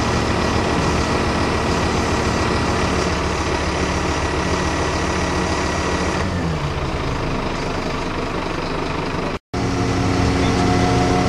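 A large engine running steadily, with its pitch dropping briefly about six seconds in. After a short gap near the end, a similar steady engine hum carries on with a higher tone in it.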